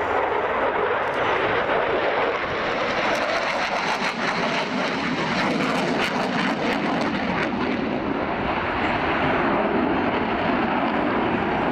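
Dassault Rafale's twin Snecma M88 jet engines running loud and steady through a display manoeuvre in afterburner. A rough, crackling stretch comes in the middle, and the pitch of the jet noise slowly sinks toward the end.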